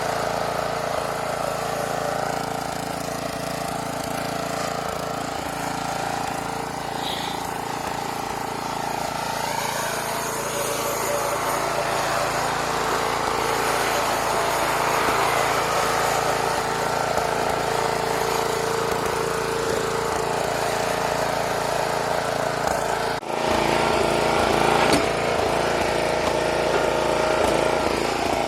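Snapper riding mower's engine running steadily while the mower is driven around, with a brief dropout about 23 seconds in.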